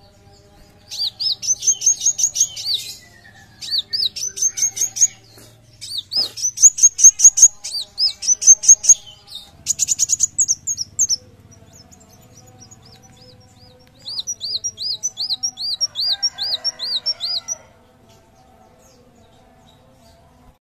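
Male kolibri wulung sunbird singing: several bursts of rapid, high, chirping notes, then after a pause a slower run of repeated looping notes, about three a second.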